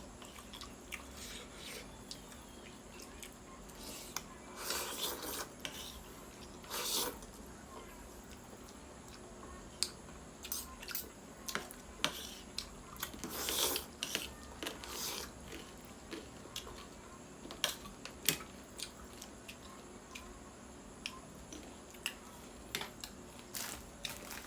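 Close-up eating sounds of someone eating chicken thukpa noodle soup: chewing and wet mouth sounds with scattered light clicks of cutlery against the bowl, and a few short noisy bursts.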